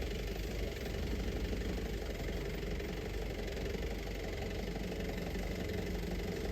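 A 4x4 off-road vehicle's engine running steadily at low revs, with a knocking engine note.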